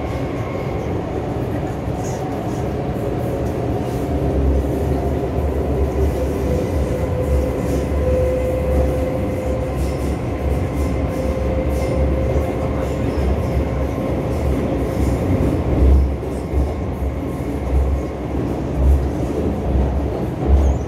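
MTR M-Train electric multiple unit heard from inside a passenger car as it runs: a steady electric whine over the rumble of wheels on rail. The rumble grows louder about four seconds in, with a few heavier low thumps near the end.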